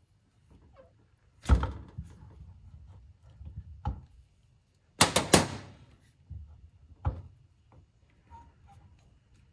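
Metal clunks and knocks from a manual Mira valve seat cutter being set into place and locked on a Mini cylinder head. There is a heavy knock about one and a half seconds in and a lighter one just before four seconds. The loudest part is a quick cluster of three or four clacks at about five seconds, followed by a single knock near seven seconds.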